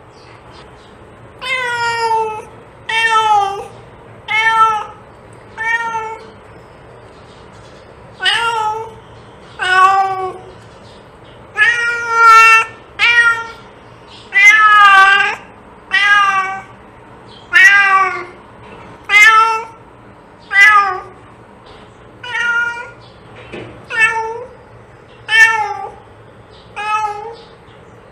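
Domestic cat meowing over and over, about twenty meows, each bending up and then down in pitch.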